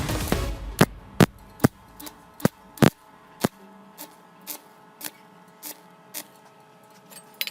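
Background music in a sparse passage: sharp clicking percussion strikes about every half second over faint held tones, after the fuller music fades out at the start.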